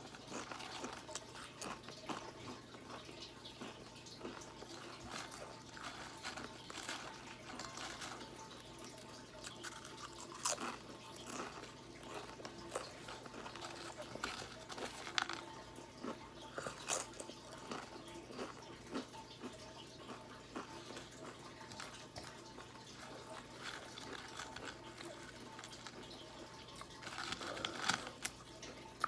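Ghost pepper tortilla chips being chewed and crunched in a dry mouth with no water to help, a run of small irregular crunches with a louder burst of chewing near the end.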